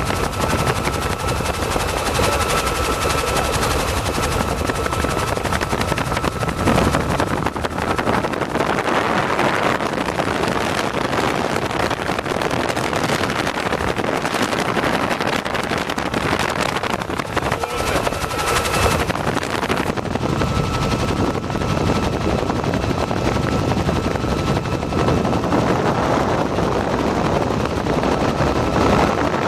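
Bell 47 helicopter in flight, its piston engine and two-blade main rotor running steadily, heard from inside the cabin as a loud, even drone with a fast beat and rushing air.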